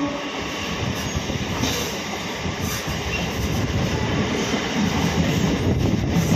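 Hyderabad MMTS electric suburban train running at speed: a steady rumble and rattle of steel wheels on the rails.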